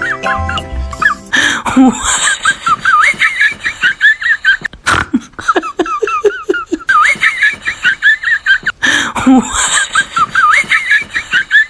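High-pitched giggling laughter, a comic laugh track laid over the footage. It comes in runs of about two seconds with short breaks between.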